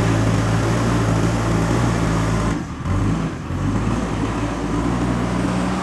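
Diesel engine of a JCB backhoe loader running under load as it digs and loads soil, its note dipping briefly about halfway through and then picking up again.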